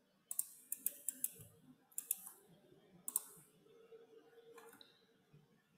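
Computer mouse clicking: a string of faint, sharp clicks, several close together in the first two seconds, then a few more spaced about a second apart, over a faint steady room hum.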